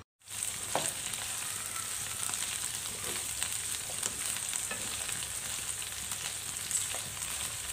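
Chopped okra sizzling steadily as it fries in hot oil in a frying pan, stirred with a spatula, with a few light ticks of the spatula against the pan.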